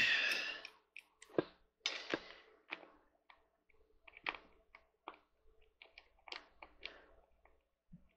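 Scattered small clicks, taps and brief scrapes of a hand tool turning screws into a gaming chair's metal seat mechanism, hand-starting them so they don't cross-thread, with one louder rustling scrape at the start.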